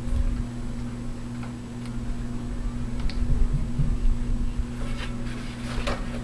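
Handling noise from plugging in the model plane's servo and battery connectors: scattered small clicks and rustling, with a cluster of sharper clicks near the end, over a steady low hum.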